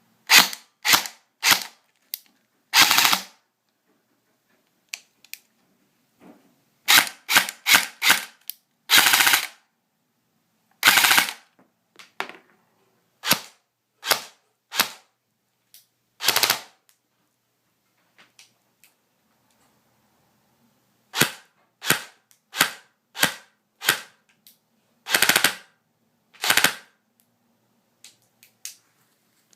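Airsoft M4 electric rifle (AEG) firing: sharp single shots and quick strings of shots, with a few half-second bursts, in clusters separated by pauses of several seconds.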